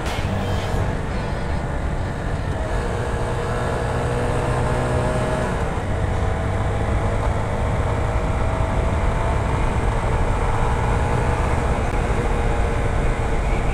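Italika Z 150 motorcycle's single-cylinder 150 cc engine running steadily at cruising speed, under a heavy rush of wind and road noise on the rider's camera. The engine note shifts slightly about halfway through.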